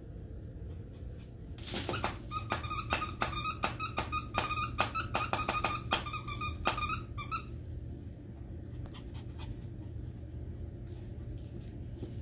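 Small dog chewing a squeaky plush toy, setting off a rapid run of squeaks, about four a second, for some five seconds. After that come a few faint chewing clicks.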